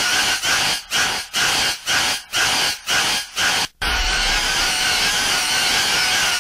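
Harsh, noisy whirring from an animatronic Halloween torture prop, like a buzz saw running. For about four seconds it is broken by short gaps about twice a second; then it runs on steadily with a low rumble underneath.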